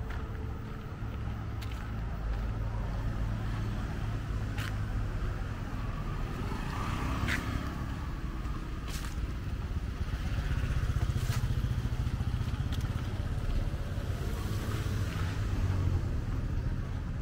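Outdoor street ambience: a steady low rumble that grows louder in the second half, with a few sharp clicks spaced a second or two apart.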